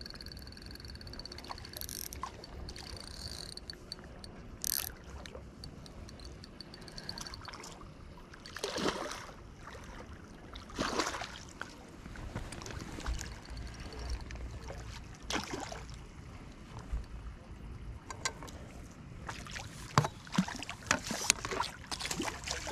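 A hooked barbel thrashing and splashing at the water's surface as it is played in to the bank: single splashes about nine, eleven and fifteen seconds in, then a quick run of sharp splashes near the end.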